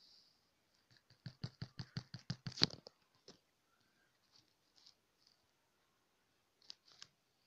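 A quick run of about ten sharp clicks starting about a second in, the last one the loudest, followed by a few faint scattered ticks, two of them near the end.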